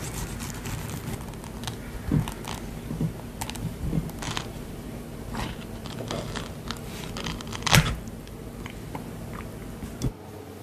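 A knife peeling and coring a soft ripe peach over a ceramic plate: wet, squishy cutting sounds with irregular clicks and taps, the sharpest about three quarters of the way in, over a low steady hum.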